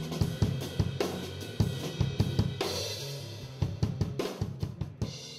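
Theme music with a drum kit beat of snare, bass drum and cymbals over low bass notes, beginning to fade out near the end.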